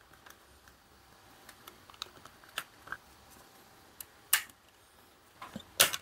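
Scattered sharp plastic clicks and snaps as a flat-blade screwdriver pries open the snap-fit plastic case of an LED driver, with a louder crack about four and a half seconds in and the loudest near the end.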